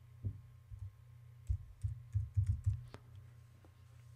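Typing on a computer keyboard: a short run of separate keystrokes over about three seconds, as a word is typed into a text field.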